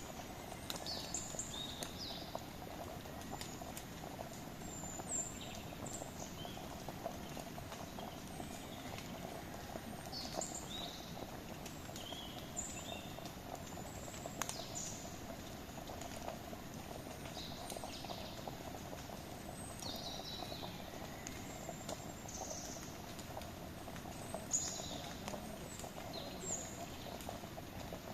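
Wood campfire crackling steadily, with small sharp pops throughout. Short high bird chirps come and go over it.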